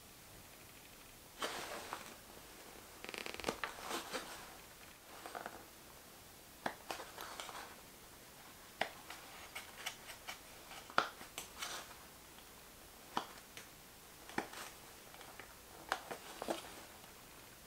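Small carving knife making short controlled cuts in maple wood: a series of crisp snicks and brief scraping strokes at irregular intervals, a few close together at times.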